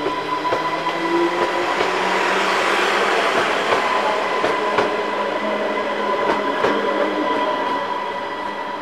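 Class 230 diesel multiple unit (converted ex-London Underground D78 stock) pulling away and running past, its wheels clicking over rail joints. A rising drive note in the first second or so, with a steady high whine over the running noise, which swells to its loudest about three seconds in and then eases as the train draws off.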